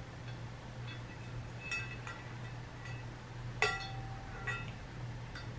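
Rose-gold metal stand parts clinking as a two-tier stand is put together by hand: about six light, separate clinks, each with a short ring, the loudest about two-thirds of the way through.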